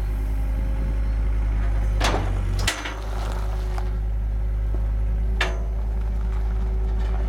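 Skid steer loader's engine running steadily, with sharp metallic clanks from the raised bale slicer attachment and loader frame: two about two seconds in, half a second apart, and one more about five and a half seconds in.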